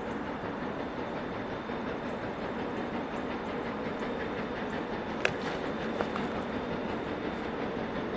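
Passenger train rolling by with a steady rumble of wheels on rail, and sharp clicks a little past five and six seconds in.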